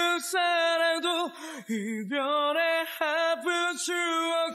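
A man singing a slow song in long held notes, with short breaks between phrases.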